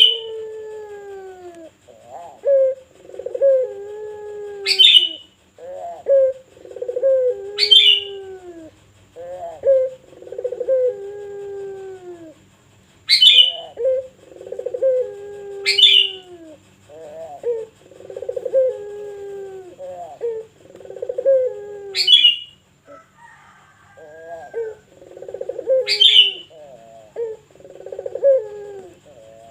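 Pelung dove cooing: a deep, rolling coo repeated phrase after phrase, each with falling, arched notes. About six sharp, high, short calls come in among the coos.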